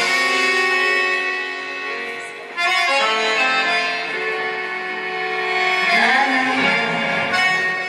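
Tango-style backing music led by accordion, playing sustained chords; it drops away briefly about two and a half seconds in, then comes back in abruptly at full level.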